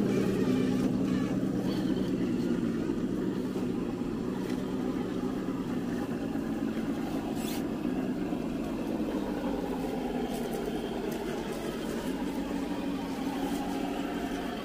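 Electric motors and gearboxes of RC rock crawlers whining as the trucks crawl over rocks, the pitch wavering with the throttle and the sound slowly growing fainter.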